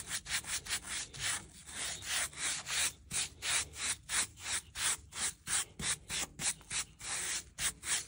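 Stiff-bristled hand brush scrubbing back and forth across the rough-sawn face of a white oak board, about three quick strokes a second, a dry scratchy rasp of bristles over wood.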